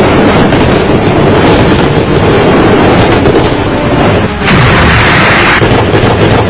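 Explosions and tank cannon fire from battle footage, a loud continuous series of blasts. There is a brief drop about four and a half seconds in, and then a fresh blast.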